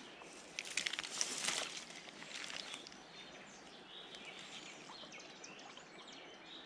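A short burst of rustling and handling noise about a second in, as a landing net is taken up from the grassy bank while a hooked chub is played. After it, quieter riverside ambience with faint bird chirps.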